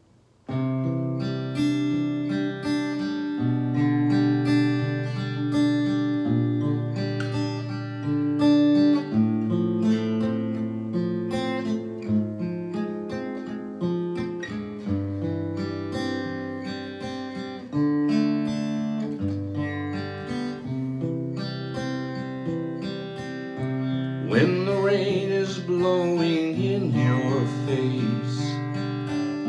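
Steel-string Yamaha acoustic guitar playing a slow chordal intro, with changing bass notes under sustained chords. It begins about half a second in, and a man's singing voice comes in over the guitar about 24 seconds in.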